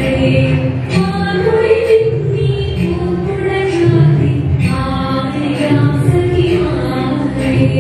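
A Thiruvathira song sung by female voice with musical accompaniment, a continuous flowing melody.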